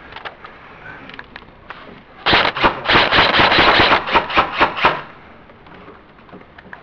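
Airsoft rifle firing a fast automatic burst of rapid sharp shots lasting about two seconds, then about five separate shots in quick succession.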